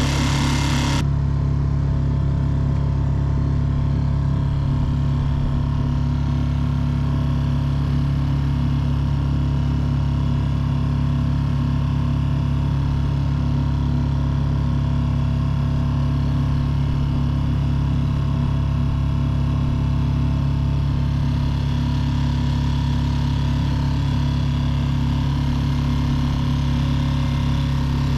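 Mercury F3.5 four-stroke outboard motor (the same unit as the Tohatsu MFS 3.5), a small single-cylinder engine, running steadily at constant throttle under way on an inflatable boat.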